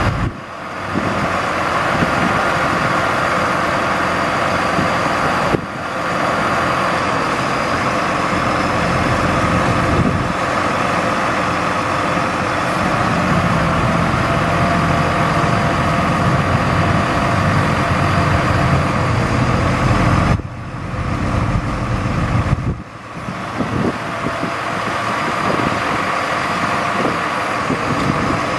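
The truck's engine runs steadily, driving the hydraulics of a National N80 crane as its boom is swung and extended, with a steady high whine over the engine. The sound drops briefly a few times as the crane controls are worked.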